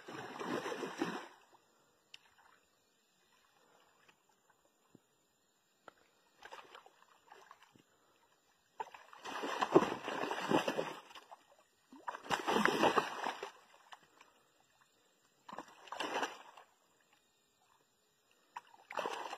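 Water splashing in repeated bursts a few seconds apart, loudest about ten and thirteen seconds in: a hooked fish thrashing at the surface beside a log while the angler reaches down into the water to grab it.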